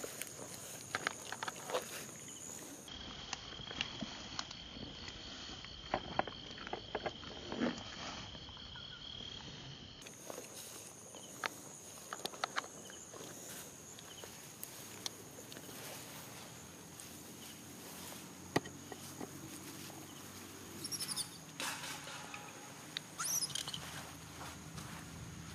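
Macaque monkeys moving about in grass: soft rustling with scattered light pats and clicks over a steady high insect trill. A few short high squeaks near the end.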